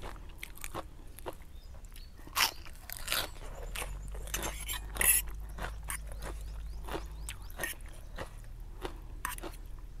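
A person chewing crisp lettuce leaf and noodles close to a clip-on microphone: crunchy bites and wet mouth clicks, with the loudest crunches about two and a half and five seconds in.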